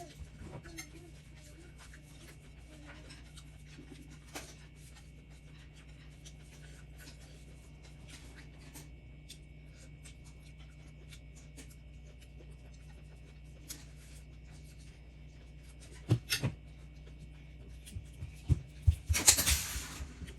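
A steady low hum with faint scattered clicks in a small room. About sixteen seconds in there is a sharp knock, then several knocks and a loud burst of noise near the end.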